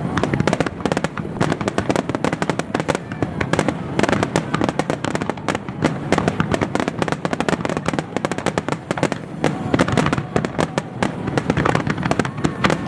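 Fireworks display going off in a rapid, continuous barrage of bangs and crackling, many reports a second.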